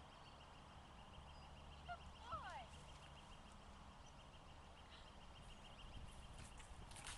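Near silence: faint outdoor ambience, with a brief faint call of gliding pitch about two seconds in and a few soft rustles near the end.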